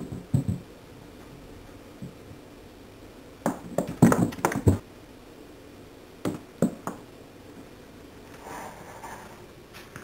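A cat's paws knocking and thumping on hollow wooden stair treads as it jumps and bats at a dangling toy mouse. There are three clusters of knocks, the loudest in the middle, then a soft rustle near the end.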